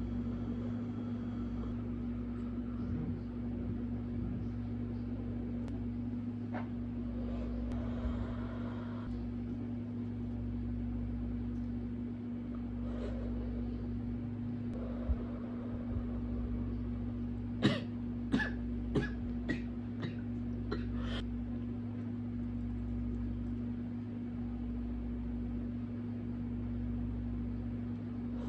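A steady low hum with one fixed tone, with a quick run of about seven sharp clicks a little past the middle.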